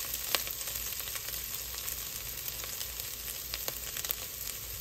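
Ground beef and dry Rice-A-Roni toasting in a pot, sizzling steadily with a few sharp crackles.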